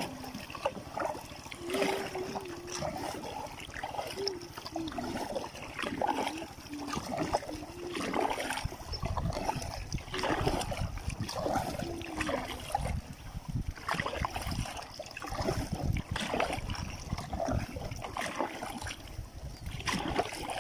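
Kayak paddle strokes dipping and splashing in river water, with water trickling off the blades, about one stroke every two seconds.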